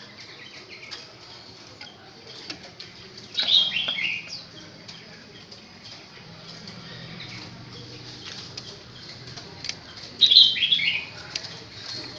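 Chinese hwamei singing two short loud phrases of falling whistled notes, about three seconds in and again near the end, with soft chirps and light clicks between them.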